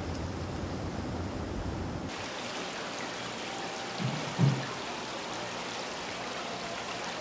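Water running and splashing into the live seafood tanks from their circulation hoses, a steady trickling hiss. For the first two seconds there is a low outdoor rumble instead. About four seconds in, two short low sounds come through, the second louder.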